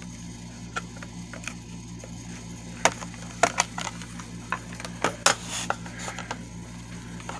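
Scattered light clicks and knocks of a digital alarm clock being handled and turned over, a few sharper ones in the middle, over a steady low hum.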